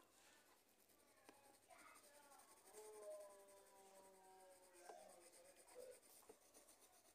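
Near silence, with the faint scratch of a coloured pencil rubbing on paper as it colours.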